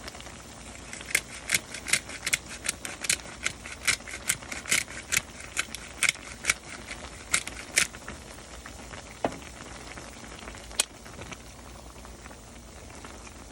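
A quick run of sharp clicking taps, about three a second for some seven seconds, from a black pepper shaker being shaken over a pot of collard greens, over the steady simmer of the pot. A single low knock and a lone click follow.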